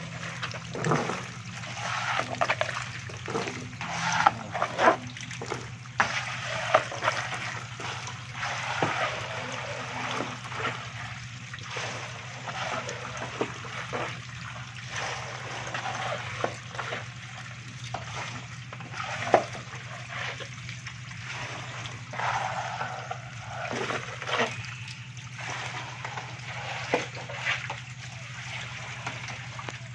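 Shallow water crowded with live stinging catfish, splashing and trickling as the fish thrash and are scooped up in a plastic scoop; irregular sharp splashes over a steady low hum.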